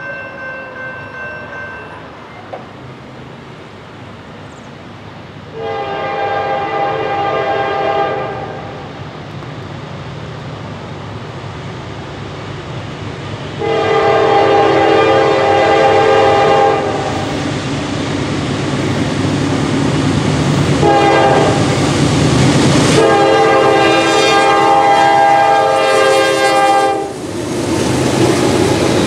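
Norfolk Southern GE D9-44CW diesel locomotive's horn blowing the grade-crossing signal as the train approaches: long, long, short, long. Under the horn the low rumble of the locomotives grows louder, and the lead units pass near the end.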